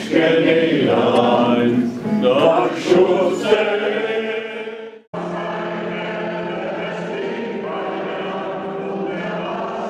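A group of voices singing, fading out about five seconds in. After a brief break, a choir singing steadier held notes.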